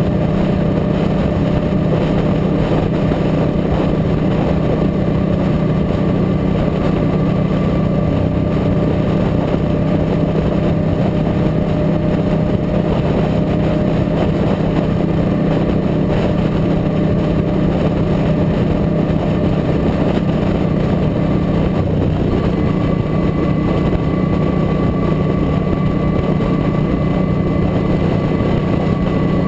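Motorcycle engine running steadily at highway cruising speed, with wind and road noise on the microphone.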